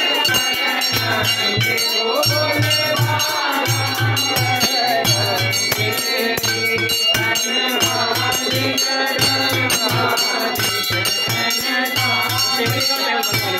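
Hindu aarti music: voices singing a devotional chant over constantly ringing temple bells and a rapid low drumbeat that comes in short runs with brief gaps, with a jingling rattle.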